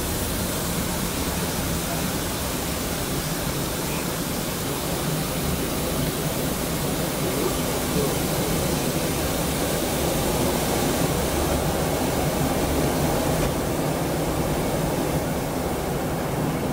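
Steady rushing rumble of a moving steam-hauled train, heard from a carriage window.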